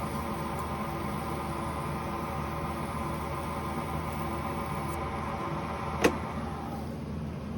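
Lathe running steadily with a motor hum while sandpaper is held against a spinning bicycle hub bearing cone to polish out grinding scratches. There is one sharp metallic click about six seconds in, and the higher part of the hum fades soon after.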